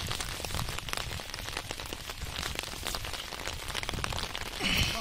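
Rain pattering steadily on floodwater, a dense crackle of small drops, with a brief louder rush near the end.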